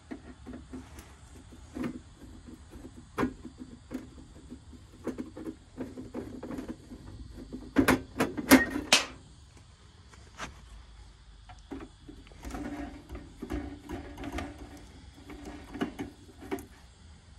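Hand screwdriver undoing the screws of a Daikin indoor unit's galvanised sheet-metal cover: scattered clicks and metal-on-metal scrapes, with a cluster of sharp knocks about eight seconds in and stretches of rattling, grating turning a few seconds later.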